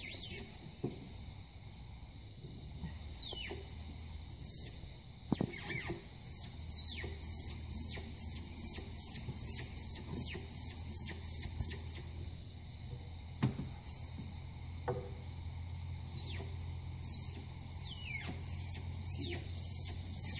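Runs of short high-pitched squeaks, about one and a half a second, from about six to twelve seconds in and again near the end, over a steady high insect drone.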